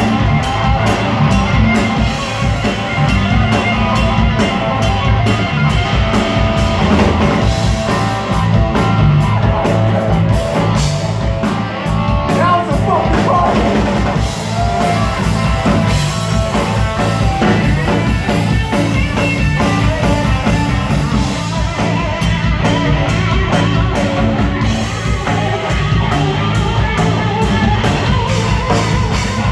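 Live rock band playing an instrumental passage: electric guitar lines over electric bass and a steady beat on a drum kit.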